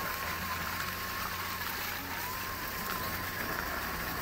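Vehicle driving along a rough dirt road: a steady rumble and hiss of engine and tyres, with a faint wavering whine through much of it.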